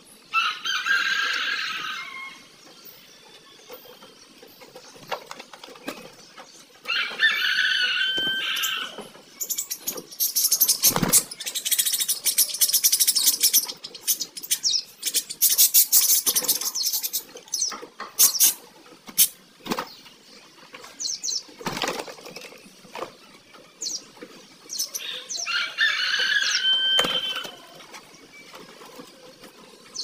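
A flock of caged budgerigars chattering and chirping, busiest midway, with short clicks and wing flutters. Three loud calls of about two seconds each stand out: one at the start, one about seven seconds in and one near the end.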